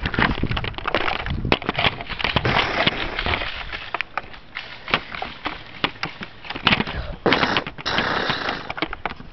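Many irregular sharp clicks and knocks over rustling and scuffing: a player moving on foot while handling and firing a Nerf blaster, with handling noise on the microphone.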